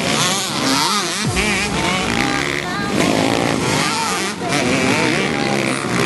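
Several motocross dirt bikes racing over a dirt track, their engines revving up and down again and again as the riders take the jumps. Indistinct voices are heard alongside.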